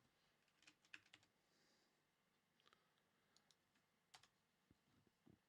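Near silence with faint, irregular clicks of a computer keyboard and mouse.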